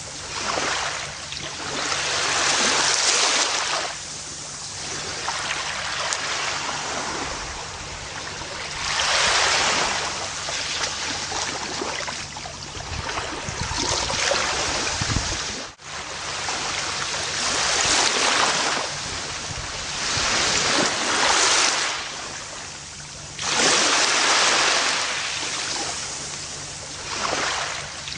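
Gentle ocean waves washing up a beach, the surf swelling and falling away every few seconds. The sound cuts out for an instant about halfway through.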